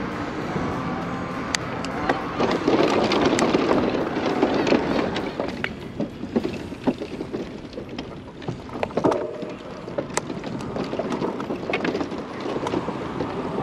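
Wind rushing over the microphone and the rolling noise of a moving bicycle, with frequent small rattles and clicks; the noise swells and eases.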